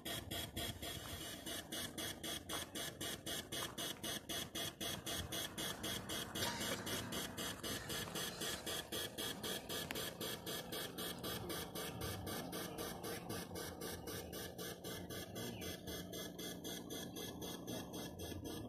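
Sound module of an electric-powered model Clyde puffer playing a simulated steam-engine chuff, an even beat of about four to five puffs a second.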